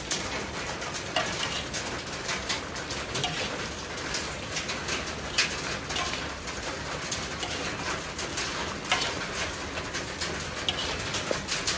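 A metal fork and spatula clinking and scraping against a metal wok as chicken pieces and basil leaves are tossed, with scattered sharp clicks over a steady background hiss.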